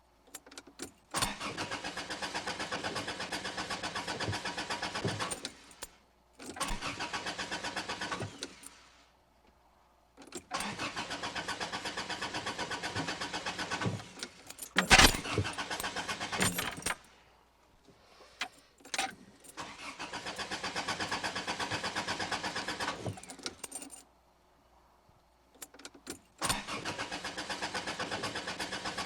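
A car's starter motor cranks the engine over and over in bursts of two to five seconds with short pauses between them. The engine does not catch: it will not start. A brief, louder sharp burst comes about midway.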